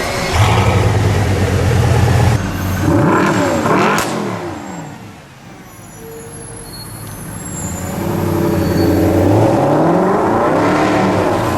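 Supercar engine revving and accelerating: a deep steady note at first, then the pitch sweeps up and down about three seconds in. It fades to a lull around five seconds and builds again from about eight seconds with more rising and falling revs.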